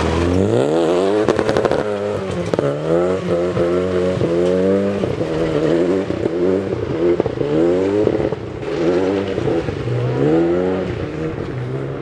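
Renault Clio rally car's engine revving up and dropping back again and again, its pitch rising and falling about once a second as the throttle is worked, then easing slightly near the end as the car pulls away.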